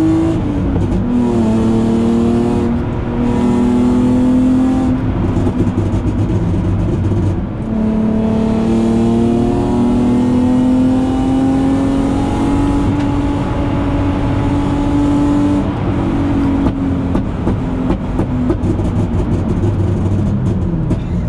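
BMW E36 323i's M52B25 straight-six with headers and a loud, straight-piped exhaust, heard from inside the stripped, caged cabin while driving hard. The revs climb and drop at gear changes about half a second and seven and a half seconds in, pull steadily again, then fall away after about sixteen seconds with irregular pops and crackles as the revs drop.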